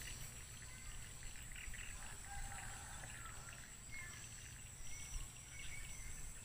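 Faint outdoor ambience: a steady high-pitched insect drone, with short bird chirps every second or so and a low background rumble.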